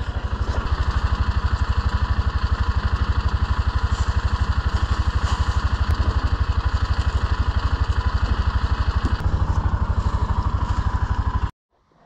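Polaris Ranger utility side-by-side's engine running steadily with an even low pulse, stopping abruptly near the end.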